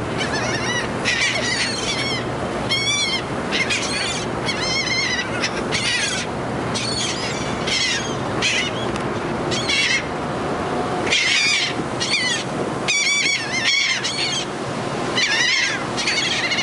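A flock of seagulls calling overhead: short calls come every second or so and often overlap, over a steady low hum.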